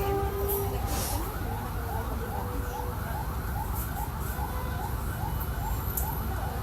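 A siren in fast yelp mode, rising wails repeating about two to three times a second, heard over the low, steady rumble of the Mercedes-Benz OF-1722 bus.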